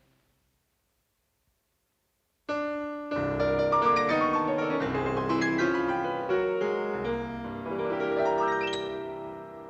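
Near silence for about two and a half seconds, then piano music starts suddenly: a busy passage of many notes, with a fast upward run near the end.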